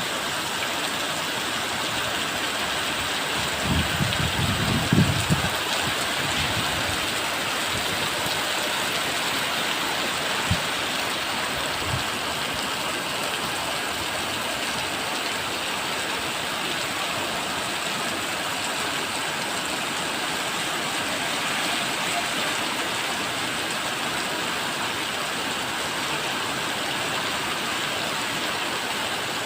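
Rain falling steadily, a dense even hiss, with a few brief low thumps about four to five seconds in.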